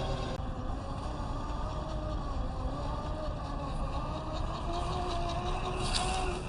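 Scale RC crawler's Fusion SE 1800kv brushless motor and geared drivetrain whining, the pitch wavering up and down with the throttle. A short patch of crackling comes in near the end.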